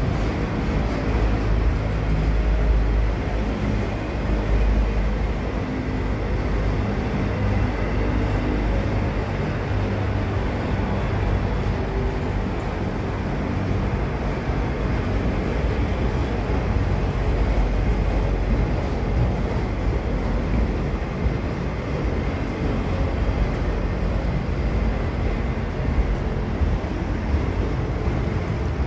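Freight train of autorack cars rolling steadily past: a continuous rumble of steel wheels on the rails, heaviest in the low end.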